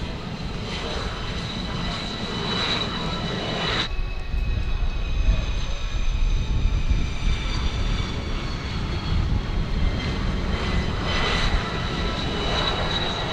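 F-16 Fighting Falcon's jet engine whining and rumbling as the fighter rolls along the runway nose-high. The sound changes abruptly about four seconds in.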